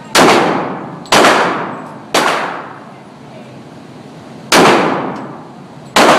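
Five handgun shots fired at a slow pace: three about a second apart, a pause of over two seconds, then two more. Each shot rings out with a reverberant tail of about a second.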